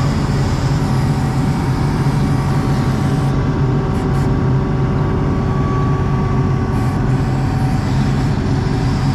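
ASV RT-40 compact track loader's diesel engine running at a steady speed, heard from inside the operator's cab.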